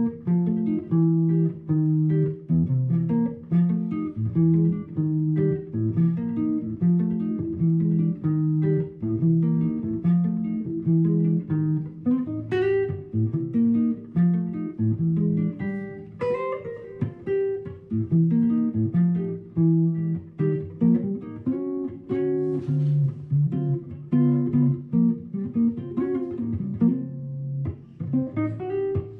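Instrumental acoustic guitar music: plucked notes over a repeating low-note pattern.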